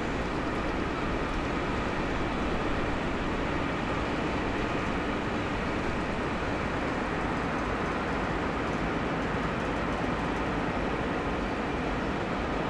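Steady, even rumble of harbour noise, with no distinct events.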